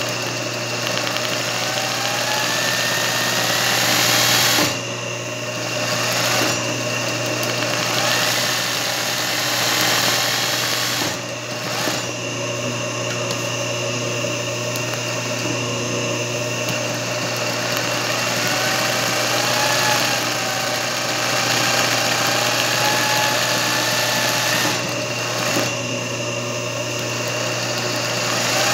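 Singer 20U industrial zigzag sewing machine running steadily while stitching satin-stitch machine embroidery, its motor humming. It slows off briefly a few times as the hoop is repositioned.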